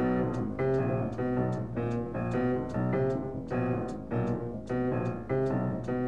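Jazz piano striking chords in a steady rhythm, about two a second, from an old jazz recording.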